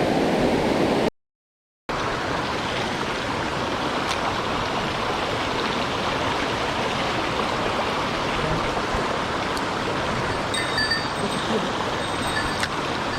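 Mountain stream water rushing steadily over rocks, cut by a brief gap of silence about a second in.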